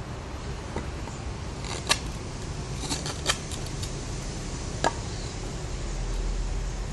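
A few sharp clicks and cracks from a Spyderco Paramilitary 2 folding knife cutting into wood: one about two seconds in, a quick cluster a second later, and one more near the end. Under them runs a steady low rumble.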